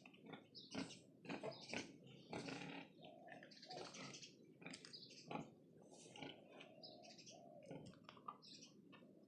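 Faint farm animal calls: pigs grunting and squealing, with short chirping calls mixed in. Several calls a second, with a couple of longer held squeals.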